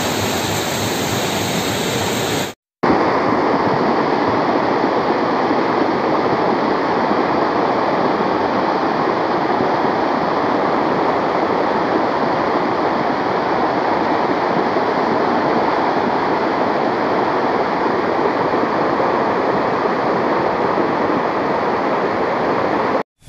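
Muddy floodwater rushing in a torrent down a road, carrying stones and debris: a loud, steady rush of water. It breaks off briefly about three seconds in, then runs on unchanged.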